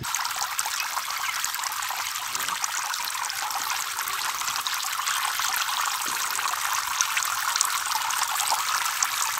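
Thin jets of water from a small pump-driven fountain head falling and splashing steadily into a tub of water.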